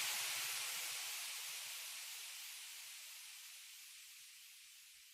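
A steady hiss fading out evenly to near silence.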